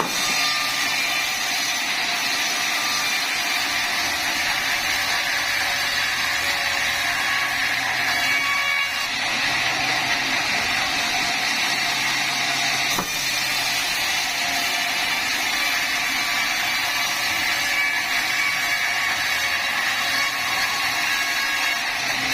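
Sawmill machinery running steadily: a continuous mechanical noise with several steady high tones over it.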